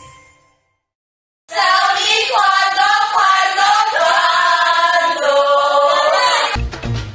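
A group of women singing together in unison, loud and held on long notes, after a second of silence. Near the end a music track with a beat cuts in.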